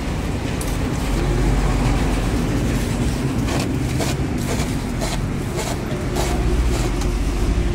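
Steady low rumble of road traffic, with a run of short clicks and rustles in the second half.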